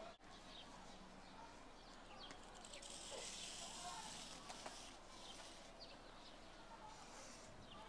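Faint scratchy hiss of a stick of chalk dragged across rough playground asphalt, drawing a line, loudest in the middle.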